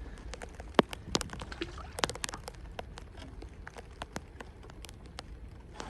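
Scattered raindrops tapping on a hard surface: irregular sharp ticks, a few a second, some louder than others.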